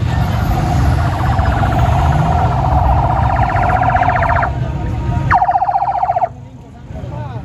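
A vehicle's electronic siren sounding a rapidly pulsing tone for about four and a half seconds, then a shorter burst a second later, over the low rumble of traffic.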